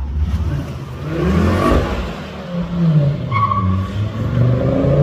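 Car engine revving hard, its pitch rising and falling several times.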